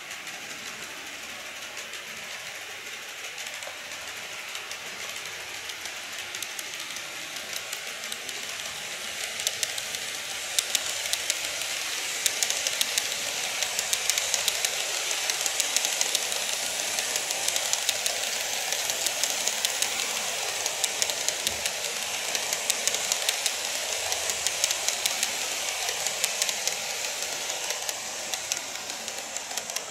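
N-gauge model electric train (GreenMax Tobu 50050 series) running along its track: a steady rolling noise with many small clicks. It grows louder as the train approaches and passes close by, then eases slightly near the end.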